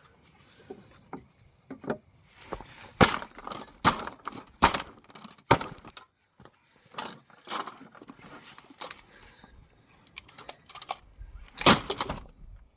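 Plastic hairdryer nozzle and casing being smashed to pieces: irregular sharp blows and cracking, several in the middle and a strong one near the end.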